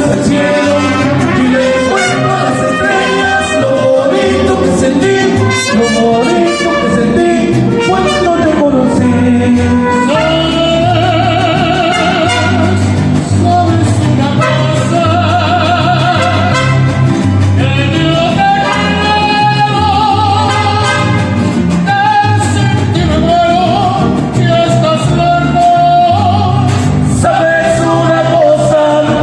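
Mariachi band performing a song with singing; the melody lines waver with a strong vibrato over a steady bass.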